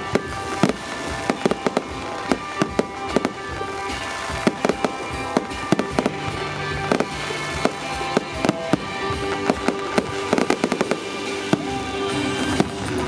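Fireworks display: aerial shells and rising comets going off in rapid, irregular bangs and crackles, in clusters, with music playing throughout.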